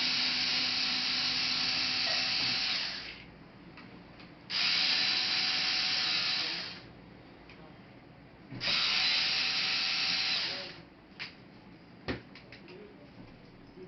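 Small electric screwdriver running three times in runs of two to three seconds, undoing laptop case screws, followed by a few light clicks.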